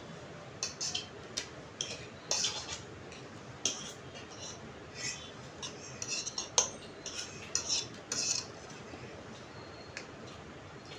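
Cutlery clinking and scraping against plates and dishes during a meal: a quick, irregular run of small clinks that thins out for the last few seconds.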